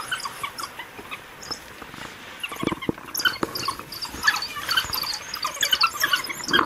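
African wild dogs giving their high-pitched twittering calls: many short, overlapping chirps and squeaks throughout, the excited calling of a pack that has a kudu at bay.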